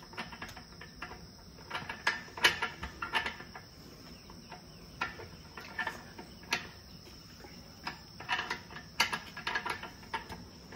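Metal sliding bolt on a wooden stable door clicking and rattling as it is handled and nosed by an elephant's trunk, in irregular clusters of knocks. A steady high chirring of crickets runs underneath.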